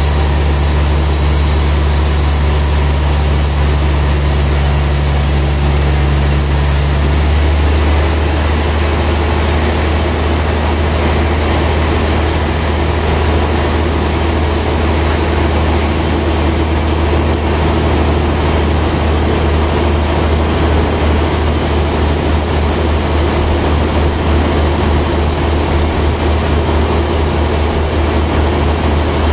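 Band sawmill machinery running with a loud, steady low hum. The note changes about seven seconds in, and in the second half the hum pulses rhythmically.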